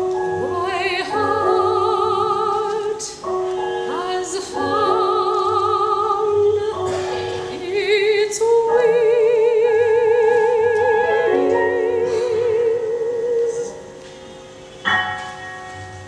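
Female classical singer performing an art song with piano accompaniment, her voice with wide operatic vibrato over piano chords. She holds one long note from about the middle until near the end, after which a single piano chord sounds and rings away.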